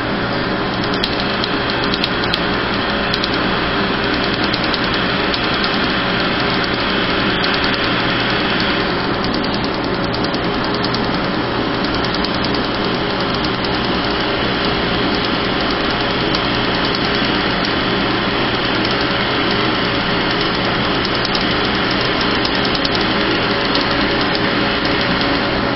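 Laser tattoo-removal equipment running: a steady loud blowing hum from the cold-air skin-cooler hose and machine fans, with faint sharp ticks from the laser pulses striking the ink, which turns the skin white.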